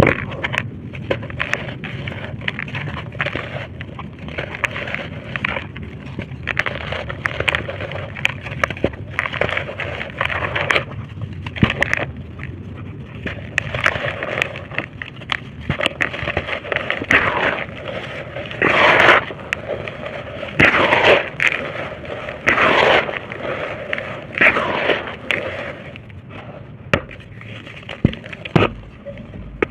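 Dry, crumbly red brick and dirt shapes being crushed and crumbled into powder: continuous gritty crackling with many sharp little cracks, and a few louder, longer crunches a little past the middle.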